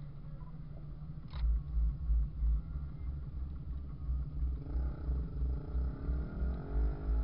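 Jeep engine revving up under load on a hill climb, its pitch rising steadily from a little past halfway. Under it, low thumps repeat about three times a second.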